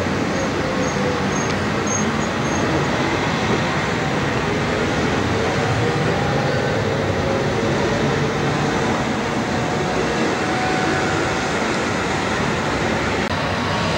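A tram and road traffic passing on a street: a steady rumble with faint tones that drift up and down in pitch.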